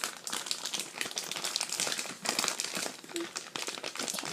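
A plastic bag crinkling and crackling irregularly as it is squeezed and handled to work slime out of it.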